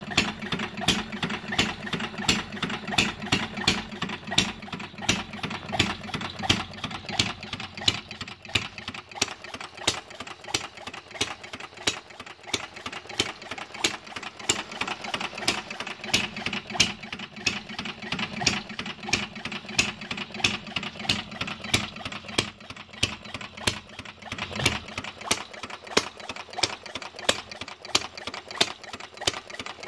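Replica of Henry Ford's 1893 'Kitchen Sink' engine, a small single-cylinder gasoline engine with a pipe cylinder and a spoked flywheel, running steadily on the bench. Its firing comes as a fast, regular train of sharp pops over the hum of the spinning flywheel.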